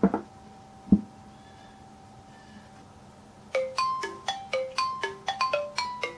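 Two short thumps, the first at the very start and the second about a second later, then, about three and a half seconds in, a smartphone incoming-call ringtone starts: a quick melody of short, bright, decaying notes, about four a second.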